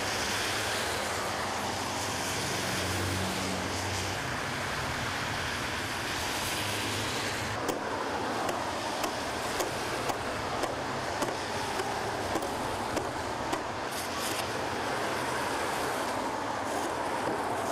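Street traffic on a wet, slushy road: a steady hiss of car tyres and engines, with small clicks and knocks from about eight seconds in.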